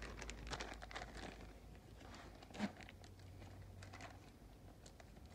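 Faint crinkling and a few light clicks as a parts package is picked up and handled, with a single soft knock a little after the middle, over a low steady hum.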